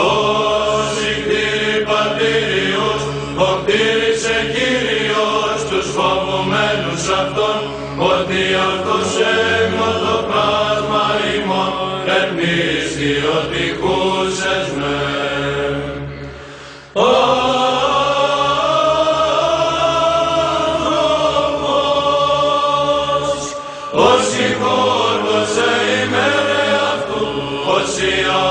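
Male monastic choir singing Byzantine chant in Greek, the melody carried over a steady low drone (the ison). The singing breaks off briefly about seventeen seconds in, then resumes.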